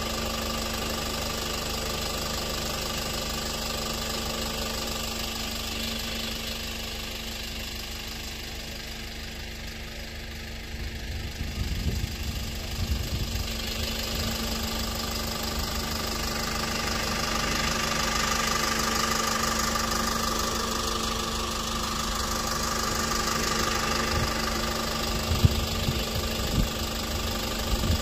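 Engine running steadily with a constant hum, under the hiss of pressure-washer spray that grows louder past the middle. A few sharp knocks near the end.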